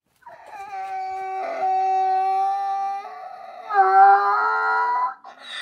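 Donkey braying in long, drawn-out pitched calls, the second one louder, ending in a harsh, breathy rasp.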